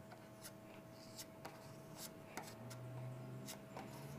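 Plastic body-filler spreader scraping polyester glazing putty across a primed steel car door in short, faint, irregular strokes.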